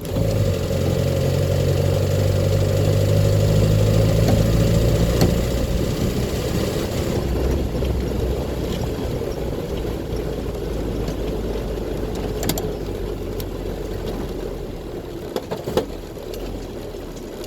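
Land Rover Series II's 2.25-litre four-cylinder petrol engine and drivetrain running as the truck drives, pulling hardest over the first five seconds or so with a faint whine rising slightly, then easing off and gradually quieter.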